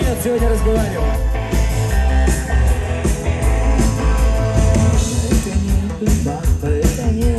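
Live rock band playing a song loudly, with a heavy, steady bass underneath.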